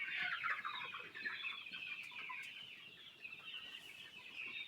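A flock of chickens calling all at once: a dense, continuous chatter of many overlapping clucks and cheeps.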